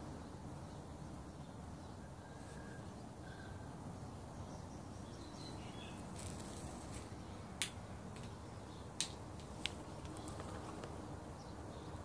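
Three sharp, single knocks in the second half over a steady outdoor background: a thrush striking a snail's shell against a concrete garden edging to break it open.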